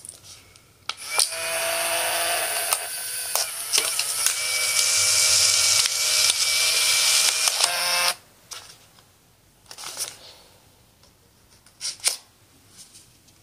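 Fujifilm Instax Mini 7 instant camera, just powered up for a first test, running with a steady mechanical whir for about seven seconds. A few sharp clicks follow.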